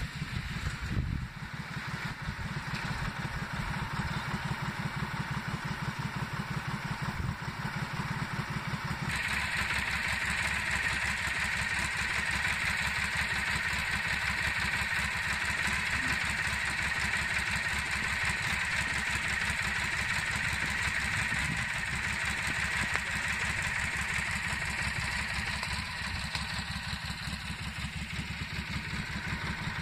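An engine idling steadily close by, its firing heard as even low pulses. About nine seconds in, a steady high hiss joins it and runs on until near the end.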